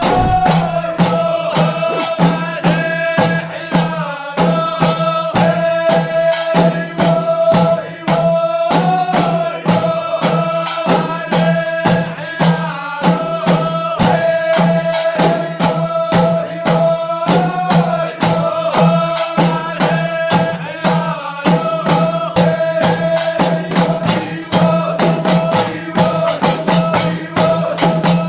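Upbeat folk-style music with fast, even shaker and tambourine strokes over a steady low drone and a sustained melody line.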